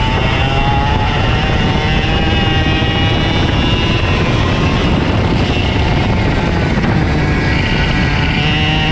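Two-stroke KA100 rental kart engine at racing speed, its pitch rising, holding, dropping through the middle, then climbing again near the end as the kart brakes and accelerates through corners. A heavy rumble and rushing noise runs underneath.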